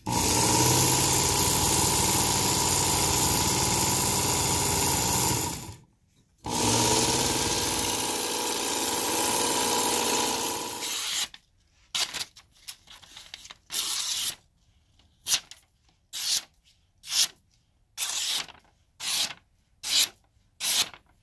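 Work Sharp Ken Onion Edition belt knife sharpener running with its fine belt as a steel blade is drawn across it: a steady whine with hiss that stops briefly about six seconds in. From about eleven seconds, a run of short, crisp slicing sounds as the freshly sharpened blade cuts through a sheet of paper to test its edge.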